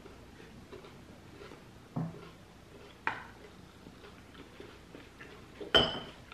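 Quiet handling sounds at a table: a soft thump about two seconds in, a click a second later, and a sharp clack with a brief ring near the end.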